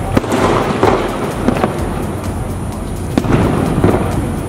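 Aerial firework shells bursting overhead: several sharp bangs at irregular intervals over continuous crackling.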